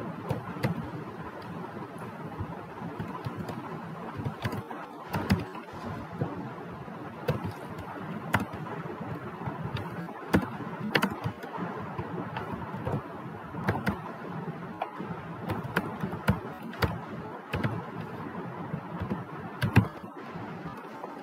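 Typing on a computer keyboard: irregular keystroke clicks in quick runs with short pauses, some strokes louder than others, over a steady background noise.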